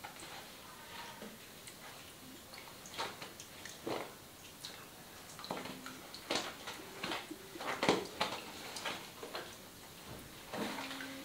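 Hands kneading and sliding over oiled skin on the neck and shoulder, making irregular soft wet clicks and smacks, with a cluster of louder ones a little past the middle.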